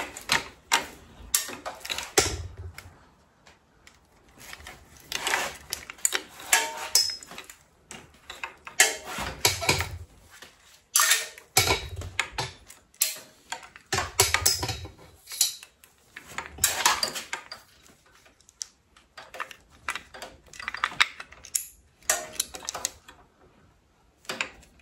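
Irregular clicks, taps and light rattles of small metal fittings and hand tools, as motorcycle throttle cable ends are worked loose by hand, with a few dull bumps among them.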